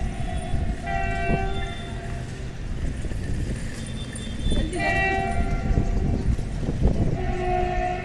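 WDG4G diesel locomotive's horn sounding a string of separate blasts, about four in eight seconds, each a chord of steady tones, over a continuous low rumble from the approaching train.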